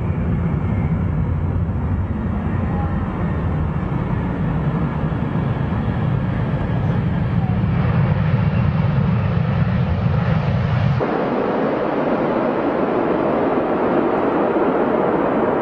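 Airbus A380 jet noise: a heavy low rumble as the four-engined airliner lands, with a broader hiss building a few seconds before it changes. About eleven seconds in, the sound cuts abruptly to a thinner, higher jet noise as the airliner passes low overhead with its gear down.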